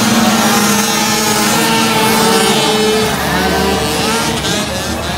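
Engines of several small youth ATVs (quads) racing on a dirt track, their pitch steady at first, then rising and falling as they accelerate around the course.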